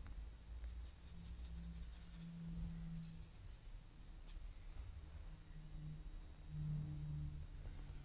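Faint scratchy strokes of a paintbrush working oil paint onto the painting surface, in short runs in the first half, with a single tick near the middle, over a low hum.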